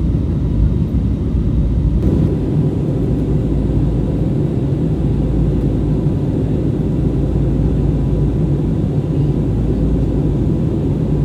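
Steady low rumble of a jet airliner's engines and rushing air heard inside the passenger cabin, with a faint constant whine above it. The rumble fills out slightly about two seconds in.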